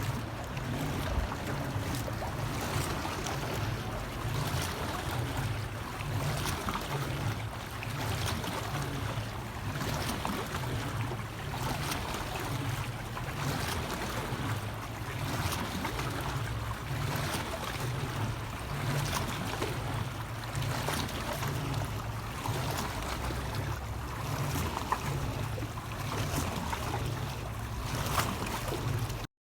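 Steady background noise with a low hum and a wash like water or wind, broken by a few faint clicks; no penguin call is heard.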